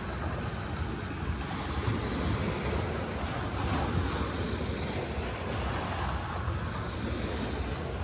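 Sea waves washing onto the shore in a steady surf, swelling gently now and then.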